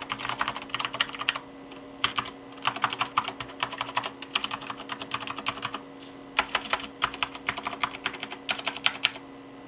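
Typing on a Ganss GS104 mechanical keyboard with unlubricated Cherry MX Clear tactile switches and stock ABS OEM-profile keycaps: rapid keystrokes in bursts with two short pauses, stopping shortly before the end.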